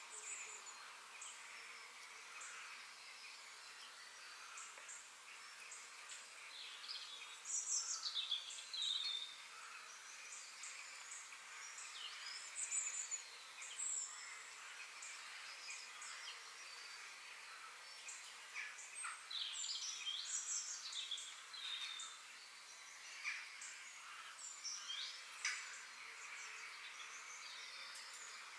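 Forest birds singing in short, high, falling phrases every few seconds, over a steady high background hiss.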